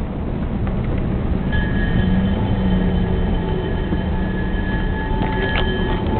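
Steady low road rumble from inside a moving car. About a second and a half in, steady high-pitched tones join it and hold.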